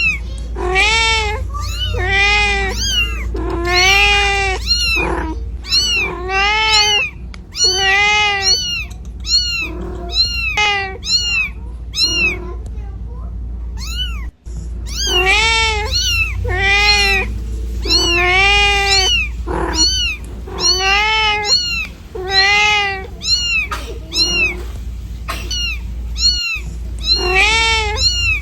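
A mother cat meowing over and over, calling for her kittens, about one call a second, each call rising and then falling in pitch. The calls turn faint for a few seconds about halfway through, then come back loud. A steady low rumble runs underneath.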